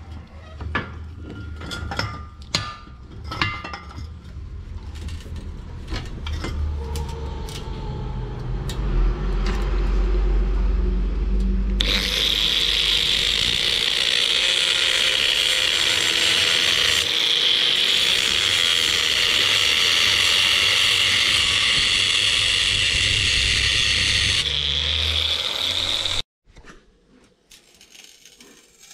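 Handheld angle grinder with a cutting disc slicing into a metal exhaust pipe, after a few clanks and knocks of the pipe being handled. The cut is a loud, steady, high-pitched grinding that lasts about fourteen seconds and stops abruptly near the end.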